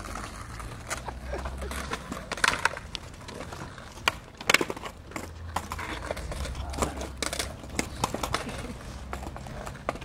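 Skateboard on concrete: a series of sharp wooden clacks and knocks from boards being popped, dropped and landed, scattered irregularly over a steady low rumble.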